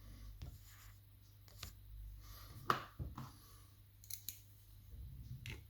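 Scattered faint metallic clicks and light scrapes from a mortice lever lock and its picking tools being handled, with one sharper click about two and a half seconds in.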